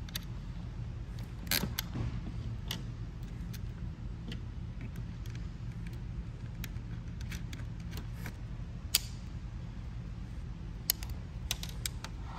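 Scattered light clicks and ticks of wires and metal crimp terminals being handled and fitted onto gauge posts, the sharpest about nine seconds in and a cluster near the end, over a steady low hum.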